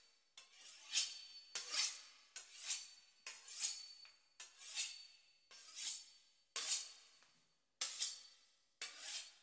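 Quiet closing music made of rasping, hissing strokes about once a second, each starting sharply and fading, with almost no low end.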